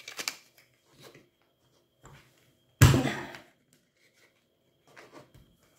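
Corner-rounder punch pressed down on a piece of card, cutting a rounded corner with one sharp clack about three seconds in. Light clicks and paper handling around it.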